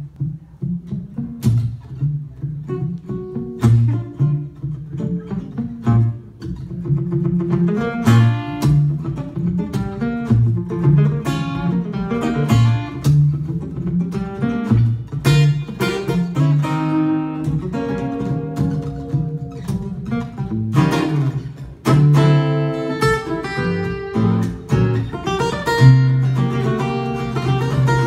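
Two acoustic guitars playing an instrumental duet together: a bass line of separate, evenly paced notes under picked and strummed chords.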